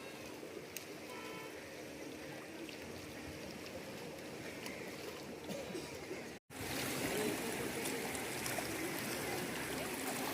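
Steady wash of flowing, lapping water with faint voices under it. The sound drops out for a split second about six seconds in and comes back louder.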